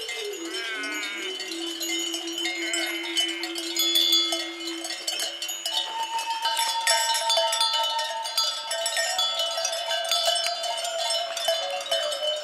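Bells on grazing sheep clanking and ringing irregularly, with many small strikes and several notes of different pitches sounding together.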